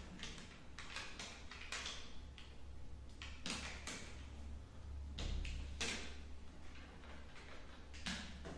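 Adhesive aluminium foil tape crinkling and scraping as it is pressed and smoothed by hand onto a refrigerator's sheet-metal side, in short irregular rustling strokes.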